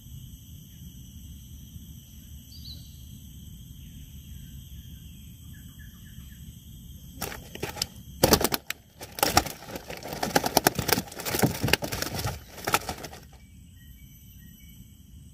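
Insects chirring steadily in several high, level tones. In the second half a loud burst of rapid clicks and rustling lasts about six seconds, then stops abruptly.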